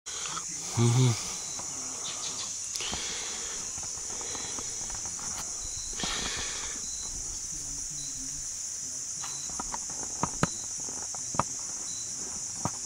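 Outdoor ambience dominated by a steady high-pitched insect chorus, with a short low voice sound about a second in and a few sharp handling clicks near the end.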